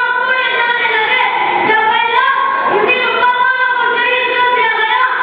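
A single high voice singing, with long held notes that bend and glide in pitch between short breaths, amplified through a microphone.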